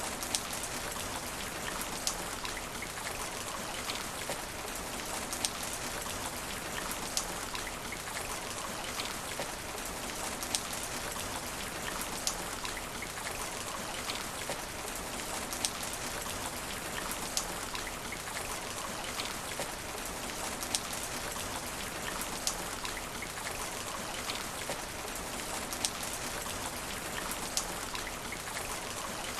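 Steady rain falling on asphalt: an even hiss of drops, with a sharp single tap standing out about every second and a half to two seconds.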